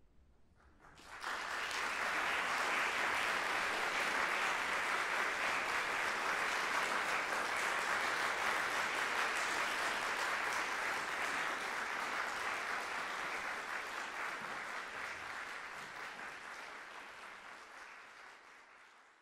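Audience applauding: the clapping breaks out about a second in, holds steady, then thins and fades away near the end.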